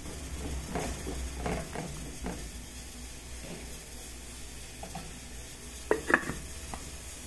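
A plastic ladle stirring and scraping chunks of vegetables in an aluminium pot over a steady low cooking hiss. About six seconds in, the aluminium lid clacks down onto the pot, the loudest sound here, as the pot is covered to cook.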